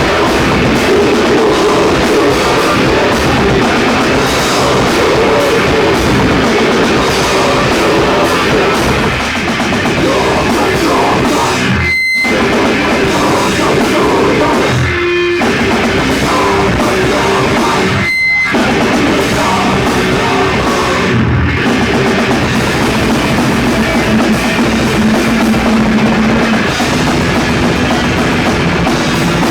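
Heavy metal band playing live, with distorted electric guitars and a pounding drum kit, loud and dense throughout. The sound cuts out for an instant a few times.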